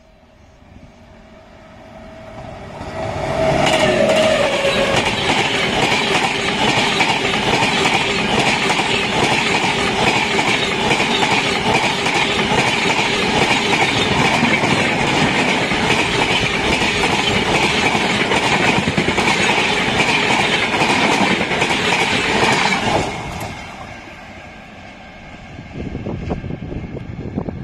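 Electric-locomotive-hauled passenger train with LHB coaches passing close at speed. It builds over the first few seconds, with a steady tone that drops slightly in pitch about four seconds in. Loud continuous rushing and wheel clatter follow for about twenty seconds, then fall off sharply as the last coach goes by.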